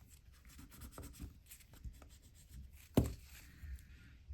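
Faint rubbing and handling of small watch parts by hand, with one sharp knock about three seconds in.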